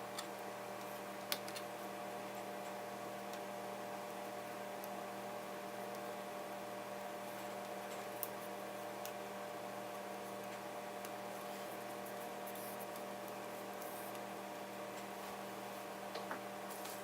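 A steady electrical hum of several tones, with a few faint, sharp clicks from small tools or parts being handled, one about a second in, one midway and a pair near the end.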